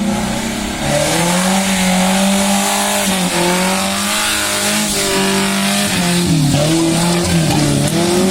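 Suzuki Jimny's swapped-in Toyota Kijang 5K four-cylinder engine revving hard under load. Its note is held high, dips and climbs again about three seconds in, and wavers up and down several times near the end, over a steady rushing hiss.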